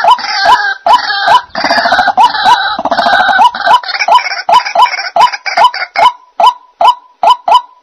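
White-breasted waterhen calling: a fast run of 'ruak ruak' croaking notes. For about the first four seconds the calls are thick and overlapping, then they settle into an even series of single notes, about two or three a second.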